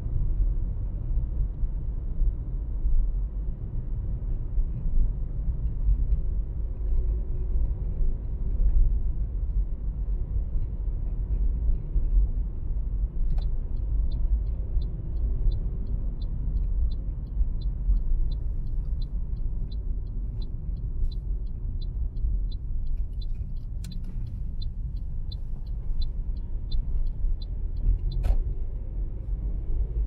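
Car driving on the road: a steady low rumble of tyre and engine noise. About halfway in, a rhythmic ticking starts at about two and a half ticks a second, the clicking of a turn-signal indicator. It stops with a sharp click near the end.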